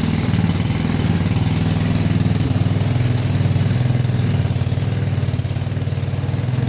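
Craftsman riding lawn mower's engine running steadily.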